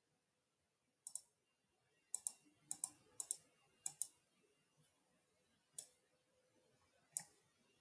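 Computer mouse clicks: about a dozen short, sharp clicks, several in quick pairs, come from about one second in until about seven seconds in.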